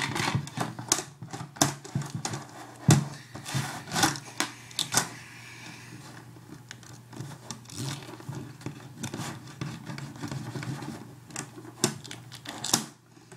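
Duct tape being handled, pulled and pressed: irregular sharp crackles and clicks, with a smoother stretch in the middle.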